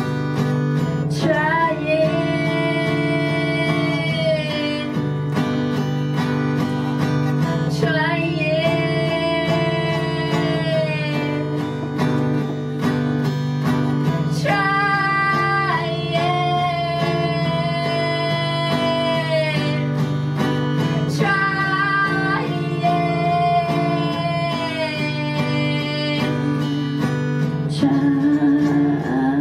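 Live music: a strummed acoustic guitar under a woman's voice singing four long held notes with little or no words, each lasting several seconds.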